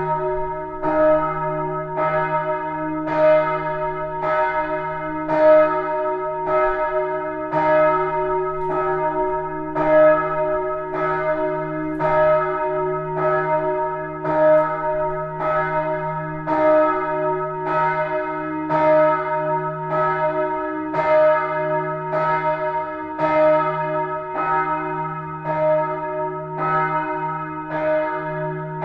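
The Neumünster's church bells ringing together, a stroke about every half second, each stroke ringing on over a steady low hum.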